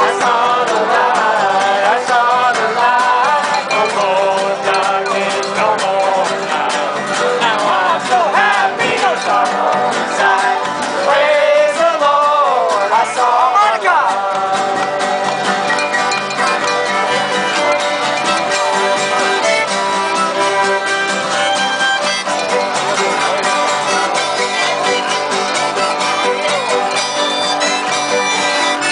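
Acoustic string band playing a country-bluegrass tune live, with guitar and fiddle; voices sing along over roughly the first half, then the instruments carry on.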